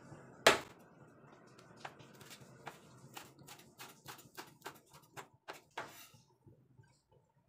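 Kitchen knife chopping spring onion on a wooden cutting board: one sharp knock about half a second in, then a run of quick chops, about four or five a second, that stops about six seconds in.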